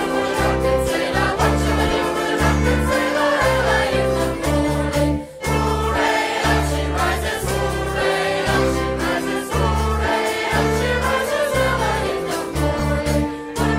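A live band of violins, viola, guitar, bass guitar, percussion and keyboards playing a song with group singing, over a steady rhythmic bass line. The music drops out for a moment about five seconds in.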